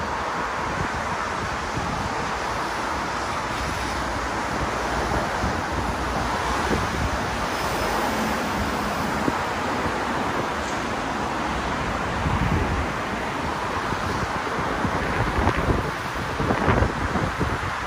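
Heavy rain falling steadily, with wind buffeting the microphone in gusts that grow stronger toward the end.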